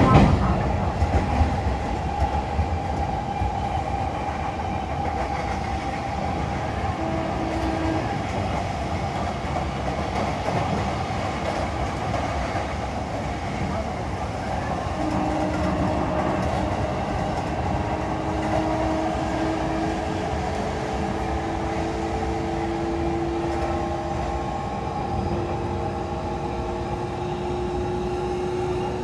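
Interior running noise of a JR East E531 series electric train: a steady rumble of wheels on rail, with a few sharp knocks about a second in. A thin whine slowly rises in pitch through the second half.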